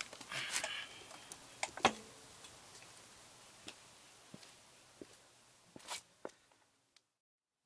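Scattered clicks and knocks from a steel rear paddock stand being handled on concrete, with a short scrape under a second in and the loudest knock about two seconds in.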